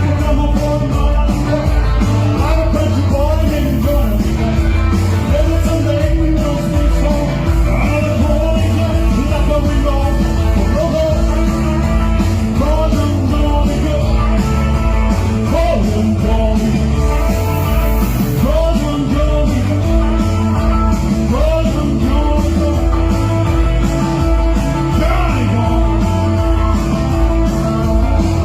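Rock and roll song with a male singer over a band with a steady beat.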